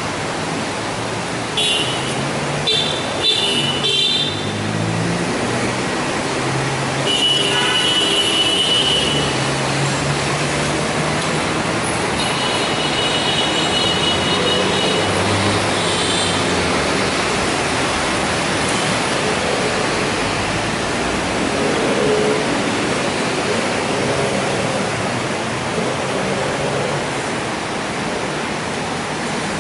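Steady street traffic noise with vehicle engines passing, and a few short high-pitched horn toots in the first half.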